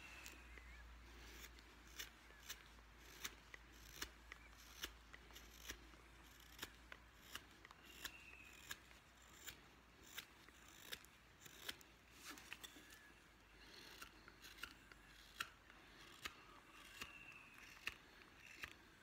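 Carving knife taking short paring cuts along the edge of a wooden spoon, a sharp snick with each cut, about two a second.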